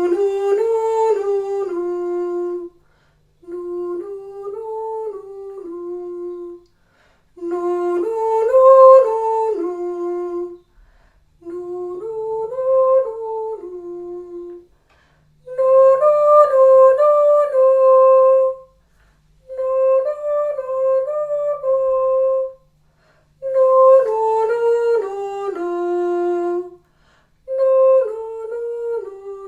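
A woman's voice singing short wordless melodic phrases as a vocal warm-up. Eight phrases of about three seconds each, each louder phrase followed by a softer repeat like an echo.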